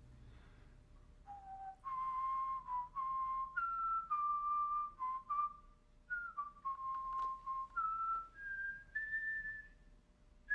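A man whistling a slow tune, starting about a second in: clear, held notes that step up and down, the last few climbing to the highest pitch.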